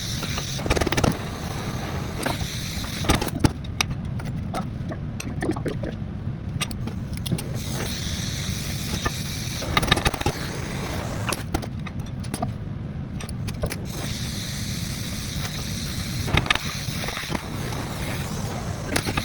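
Metal knocks and clinks over a steady low hum as stainless steel rod hook pegs are bent to a slight upward angle.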